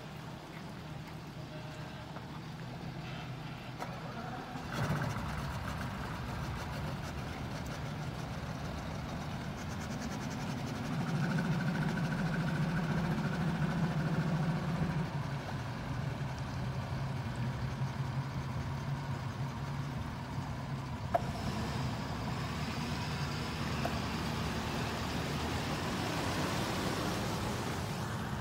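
A boat's outboard motor idling along with a pickup truck's engine. The engine sound swells for a few seconds around the middle, and there is one sharp click about three-quarters of the way through.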